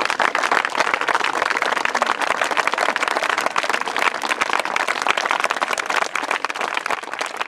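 Crowd applauding: many people clapping in a dense, steady patter that thins a little near the end.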